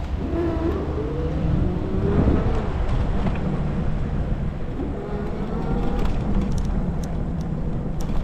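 Riding noise from an e-bike in snow: a steady low rumble of wind and tyres, with a faint whine that rises and then holds steady, and a few light clicks.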